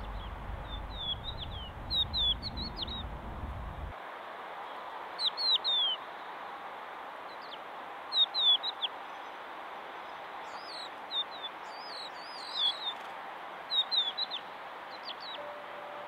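Birds chirping in short clusters of quick, high, falling notes every couple of seconds, over a steady outdoor hiss. A low rumble underneath stops abruptly about four seconds in.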